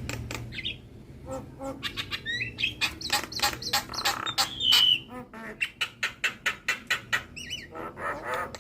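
Javan myna singing a fast, varied song of rapid clicks and rattles mixed with short rising and falling whistles, with a loud held whistle about five seconds in.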